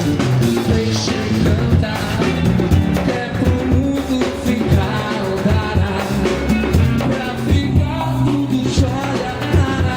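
Live band playing, with bass notes under a steady drum beat.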